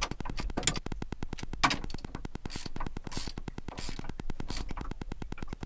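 Hands rubbing and scraping against parts, with three short hissing scrapes around the middle, over a fast, even ticking.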